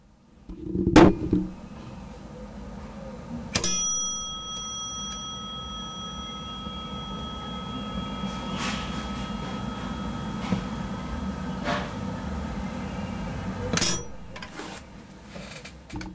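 Model elevator hall-call panel: a button press knocks about a second in. A chime sounds a few seconds later as the up arrow lights, and its tone lingers faintly for several seconds over a low hum. A second chime sounds near the end.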